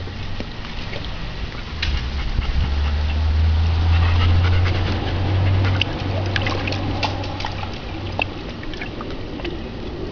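German shepherd panting while lying in a plastic kiddie pool, with small splashes and drips of water as it noses its ball. A low steady hum runs underneath from about two and a half seconds in, fading out near eight seconds.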